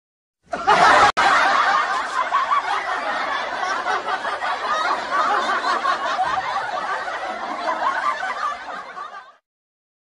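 Laughter used as a sound effect. It starts about half a second in, runs without a break for most of nine seconds, and dies away near the end.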